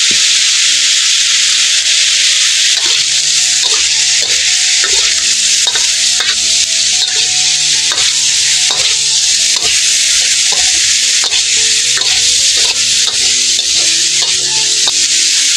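Pork pieces sizzling in a hot metal wok, with a metal spatula stirring and scraping against the pan in repeated strokes from about three seconds in.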